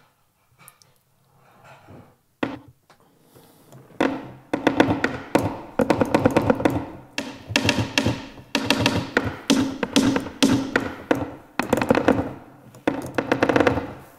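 Sampled flamenco dancer percussion from the EastWest Gypsy 'Flamenco Dancer' virtual instrument, played from a keyboard: heel stomps (tacón) of flamenco shoes on a wooden floor. A few single hits at first, then from about four seconds in, rapid runs of stomps.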